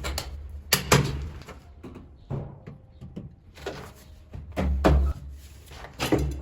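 A few sharp knocks and clacks of hard objects striking each other, scattered and irregular, over a low steady hum; the loudest cluster comes about five seconds in.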